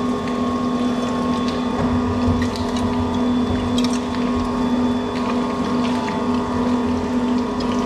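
Electric meat grinder running steadily with a constant motor hum while chunks of meat are fed into it and ground through its 8 mm plate. A few light clicks of meat and hands against the stainless steel feed tray.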